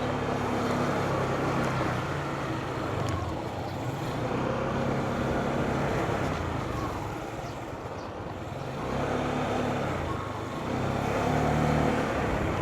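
A vehicle's engine running while driving along a road, with steady road and wind noise; the engine note swells and eases a few times as it speeds up and slows.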